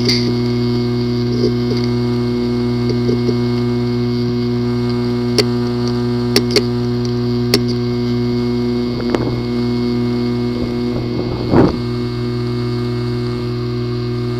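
A steady, loud machine hum with several constant tones, broken by a few sharp clicks now and then.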